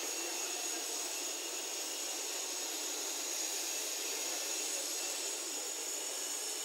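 Steady hiss of open-air background noise, with faint distant voices.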